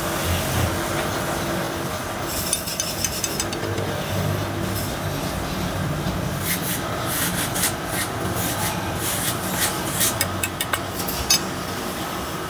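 Scattered light clicks and taps from a power tool and a steel screw-bolt being handled at the top of a wooden post, over a steady background hum.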